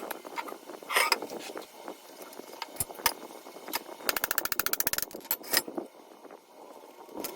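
Hand tools knocking and clinking on metal parts during a Lambretta J125 engine teardown, with a ratchet wrench clicking rapidly for about a second midway.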